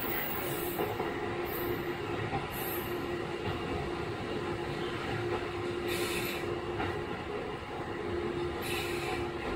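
Kiha 11 diesel railcar with a Cummins engine, running on the line as heard aboard: steady rumble of engine and wheels on the rails under a constant hum. Two short hisses come in the second half.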